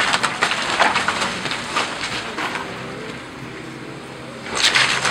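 Wooden walls and framing of an old house cracking and splintering as a Caterpillar excavator's arm crushes into them, with the excavator's engine running underneath. The cracking eases off midway and returns in a burst near the end.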